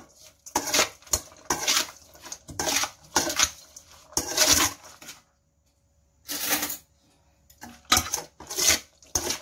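Metal serving spoon scraping and clinking against a stainless steel mixing bowl as wet sliced liver with shallots and chillies is tossed. The strokes come about one a second, with a pause of about a second past the middle.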